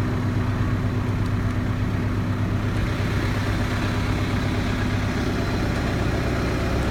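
Truck engine running steadily at raised revs with the PTO engaged, driving the Fassi F50 crane's hydraulic pump while the outrigger legs are lowered.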